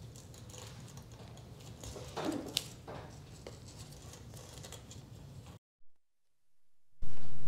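Close handling noise of a bicycle shift cable and its housing being worked by hand: light scraping and a few small clicks as a ferrule is fitted and the inner cable is threaded. Near the end the sound drops out to near silence for over a second.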